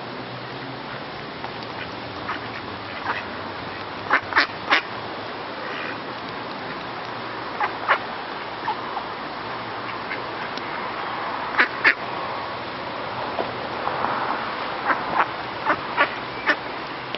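Mallard ducks quacking and pecking feed off the gravelly ground close by, their bills making sharp short taps in small clusters every few seconds.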